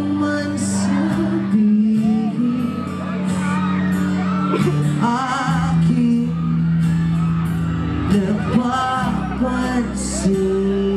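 Live pop band playing through a concert PA: a singer with vibrato over electric guitar, bass and drums.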